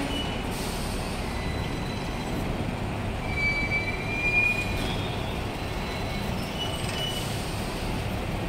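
Hong Kong double-decker tram running along its street tracks, heard from on board: a steady rumble of the wheels and running gear, with a brief thin wheel squeal on the rails about three seconds in.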